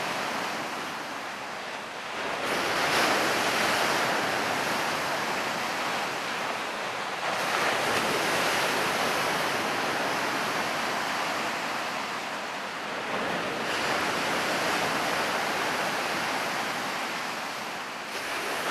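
Sea surf breaking on a stony shore, a steady wash that swells louder about every five seconds as waves come in.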